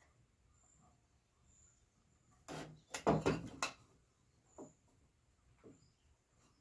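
Workshop handling noise: a quick cluster of sharp knocks and clatter, like wood pieces or tools set down on a workbench, about two and a half seconds in, followed by two lighter taps.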